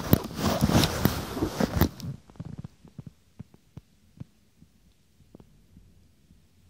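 Handling noise from a phone with its microphone covered: loud rubbing and scraping for about two seconds, then scattered soft knocks and taps as it settles.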